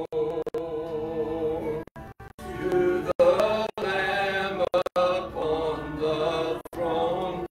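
A worship song being sung with music. The audio cuts out for split seconds several times.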